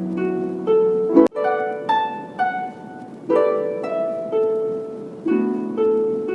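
Background music: a melody of separate notes, each starting sharply and fading away, with a sharp click a little over a second in.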